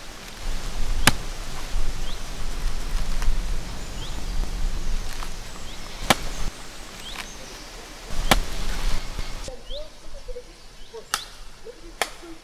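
Machete chopping into green coconut husks: single sharp strikes several seconds apart, over a low steady rumble that stops about nine seconds in. Faint bird chirps.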